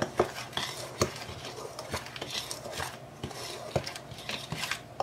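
Metal spoon stirring dry herbal powder in a stainless steel bowl: a soft gritty scraping with irregular clinks and knocks of the spoon against the bowl.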